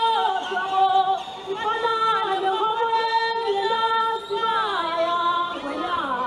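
High voices singing together without instruments, holding long notes that slide downward between phrases.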